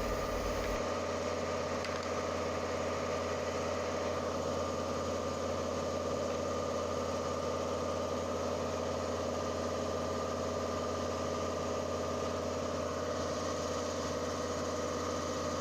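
High-frequency plastic welding machine running with a steady hum made of several held tones.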